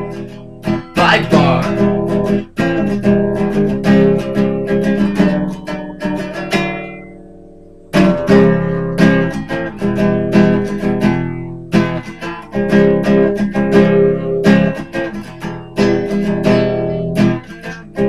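Acoustic guitar strummed in chords. About halfway through, one chord is left to ring and fade for a second or so, then the strumming starts again.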